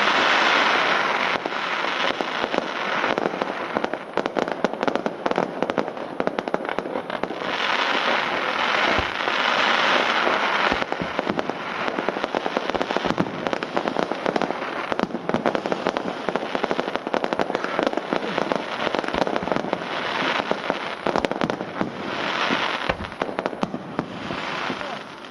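Aerial fireworks display: a dense, continuous barrage of sharp bangs and crackling, with thicker crackling salvos at the start, around eight to eleven seconds in and near the end, and a few deeper booms.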